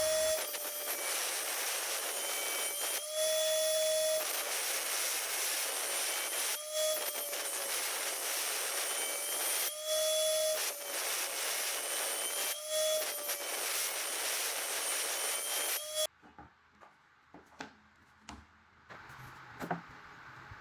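Electric saw cutting wood: the motor runs with a steady whine whose pitch sags while cutting and rises briefly about every three seconds between passes. It stops suddenly about 16 seconds in, followed by a few light knocks.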